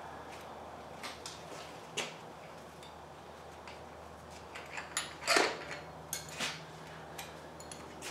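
Hand tools working the starter mounting bolts on a Ford 9N tractor: scattered light metallic clicks and clinks, with a louder ringing clank about five seconds in.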